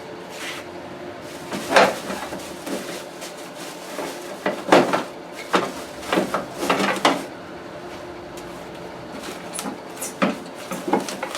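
Parts and packaging of a jointer/planer being handled during unboxing: a series of irregular knocks, clatters and scrapes, over a faint steady hum.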